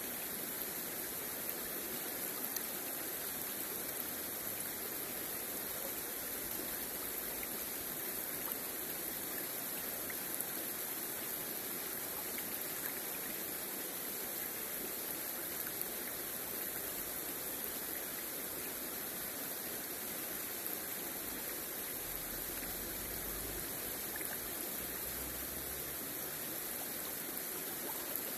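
Shallow river water flowing and rippling over stones close to the microphone, a steady rushing sound.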